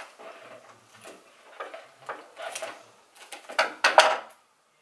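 Rustling and crinkling of a paper doily and washi tape being handled and pressed onto a balloon, in short irregular bursts. It is loudest about three and a half to four seconds in, then cuts off suddenly.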